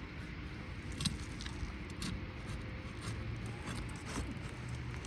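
A few light metallic clinks and scrapes of roofing tools and nails being handled, over a steady low background rumble.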